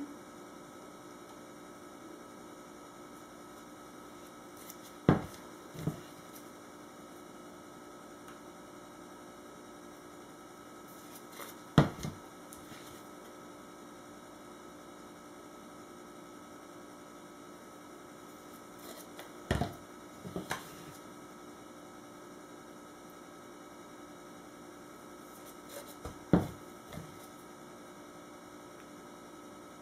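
Steady low electrical hum, broken four times by short clunks of plastic measuring pitchers being picked up and set down on the counter.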